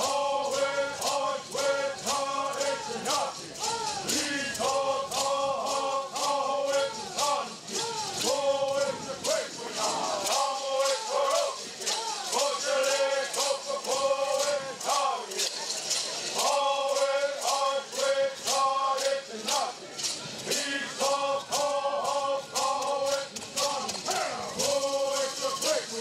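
Bird songs: a group of men singing in unison in short repeated phrases, shaking gourd rattles in a steady, even beat.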